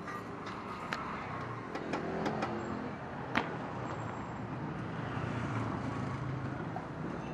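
Several short metal clinks and knocks as a motorcycle exhaust muffler with a perforated core is handled and set into a bench vise. The sharpest knock comes about three and a half seconds in. Street traffic hums steadily underneath.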